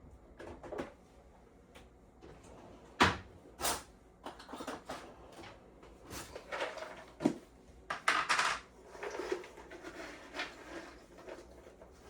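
Kitchen handling noises: a scattering of short knocks, clacks and rustles as dishes and containers are moved and set down, the loudest a sharp knock about three seconds in.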